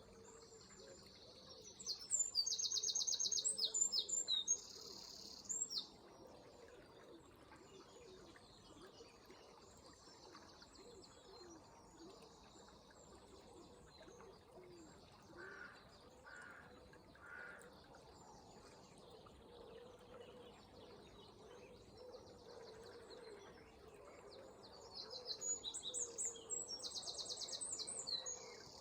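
A songbird sings two loud phrases of rapid, high trills, one about two seconds in and another near the end, with fainter bird chirps in between. Underneath runs a faint, steady murmur of flowing river water.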